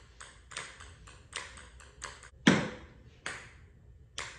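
Ping-pong ball bouncing on a concrete floor: a string of light, sharp clicks at uneven spacing, the loudest about two and a half seconds in.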